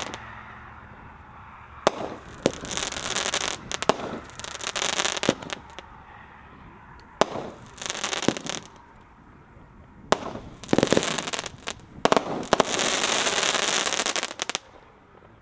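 Brothers 'Badge of Honor' 500-gram multi-shot fireworks cake firing: sharp bangs of shells bursting, each followed by a spell of dense crackling from crackling palms with glitter. Toward the end the shots come closer together with longer crackling as the quickened finale, which stops about a second before the end.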